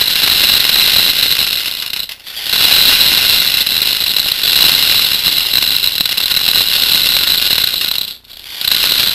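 A stream of plastic airsoft BBs pouring through a soda-bottle-top funnel into a bottle, a dense, steady rattle of many small pellets. It breaks off briefly twice, about two seconds in and near the end.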